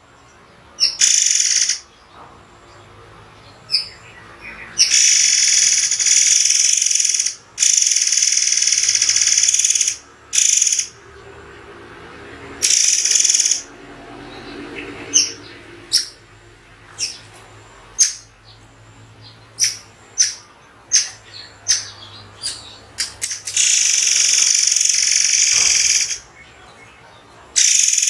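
Murai air bird calls on a song-training recording: long, sharp, high-pitched shrill calls of one to two seconds, alternating with runs of short single sharp notes separated by pauses.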